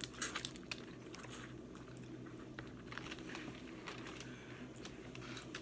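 Faint mukbang eating sounds from a seafood meal: soft chewing and squishy handling of food, with scattered small clicks and cracks, most of them in the first second.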